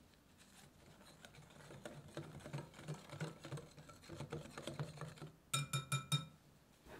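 Wire whisk stirring flour in a glass mixing bowl, its wires ticking and scraping against the glass. Near the end the whisk strikes the glass bowl four times in quick succession with loud ringing clinks.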